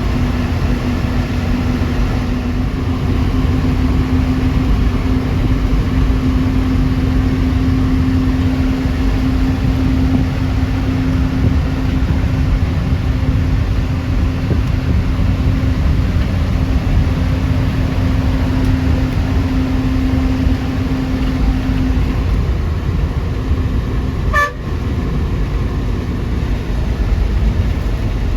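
TNSTC bus running on the road: a steady low engine and road rumble with a steady hum that fades about 22 seconds in. A vehicle horn toots briefly near the end.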